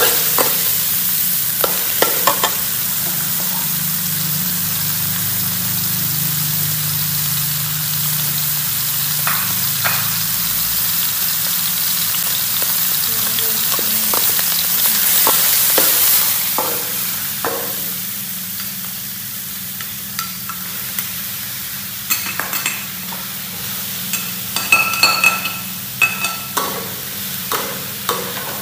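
Meat and chopped garlic sizzling in a steel wok while a metal spatula stirs, scraping and clinking against the pan. The sizzle is strongest in the first half and eases off after about sixteen seconds; in the last few seconds the spatula knocks the wok more often, with short metallic rings.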